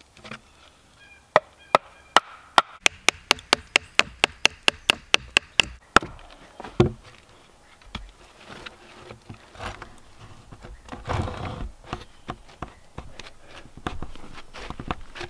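Camp hawk axe striking wood in a quick run of about twenty sharp blows, getting faster to about five a second, that stops about six seconds in. Scattered knocks and rustling of log handling follow as the bench log is settled in place.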